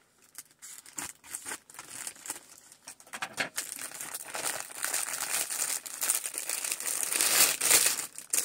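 Plastic packaging bag crinkling as it is handled and opened: a few scattered crackles at first, then continuous crinkling from about three seconds in, loudest near the end as a mask is pulled out of it.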